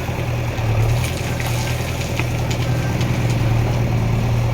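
Diesel engine of a JCB 3DX Eco backhoe loader idling steadily at a low, even hum.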